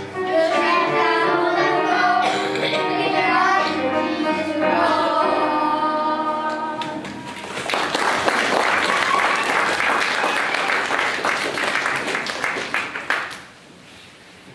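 Young children singing together over instrumental backing music for the first half, the song ending about seven seconds in. An audience then applauds for about six seconds before the clapping dies away near the end.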